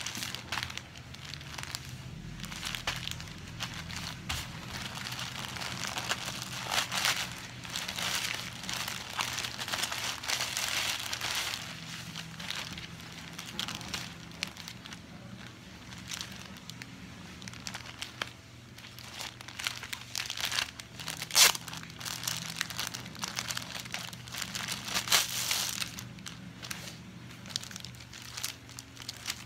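Thin plastic courier pouch and product wrapping crinkling and rustling as a parcel is opened and handled by hand, with irregular sharp crackles; the loudest comes about two-thirds of the way through. A low steady hum runs underneath.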